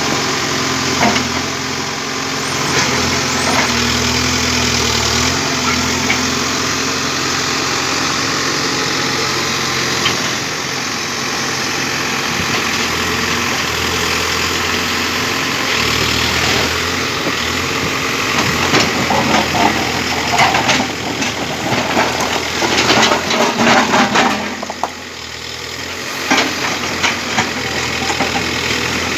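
Case 851EX backhoe loader's diesel engine running at work, its note rising and falling as the load comes on and off. Over several seconds in the second half, repeated clanks and scraping ring out over the engine.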